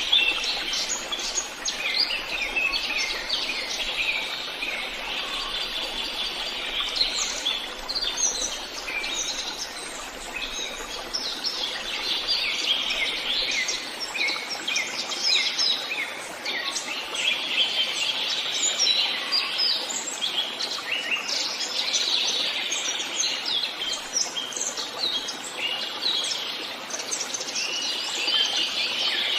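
Several songbirds singing and calling at once in a forest: a dense, unbroken chorus of short high chirps and trills over a steady background hiss.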